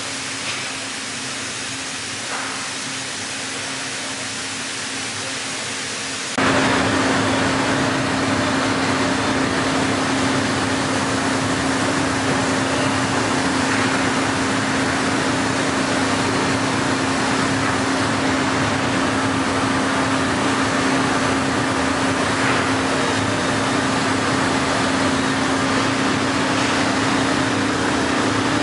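Heller four-roll CNC plate rolling machine running while it rolls a steel plate: a steady mechanical hum with one constant low tone. It becomes louder about six seconds in and then holds steady.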